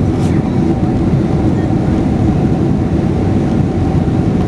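Steady roar of a Boeing 767-300's engines and airflow heard from inside the passenger cabin on approach to landing, deep and even, with a faint steady hum above it.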